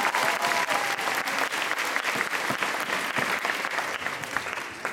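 Audience applauding a young solo dancer as she is announced and walks out, the clapping slowly dying away toward the end.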